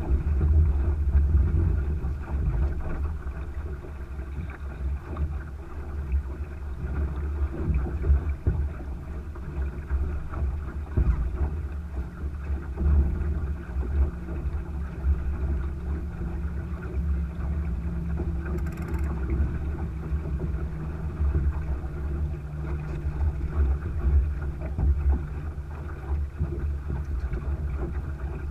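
Wind buffeting the microphone and water rushing along the hull of a Thistle sailing dinghy under way, a steady mix of low rumble and hiss.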